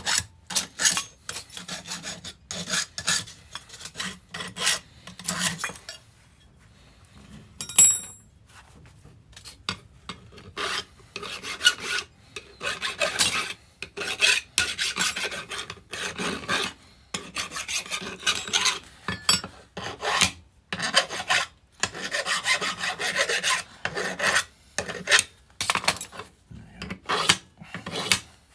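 A hand file rasping back and forth across the edge of a small steel block, deburring it, at about two strokes a second. The filing pauses for a few seconds, broken by a single ringing metallic clink about eight seconds in, then carries on.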